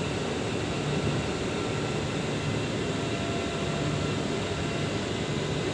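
Solar string inverter running, its cooling fans whirring steadily, with a few faint high steady tones over the whir.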